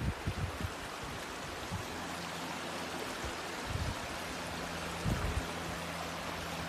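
Small mountain creek flowing over rocks: a steady rushing of water. A few low bumps on the microphone come in the first second and again around four and five seconds in.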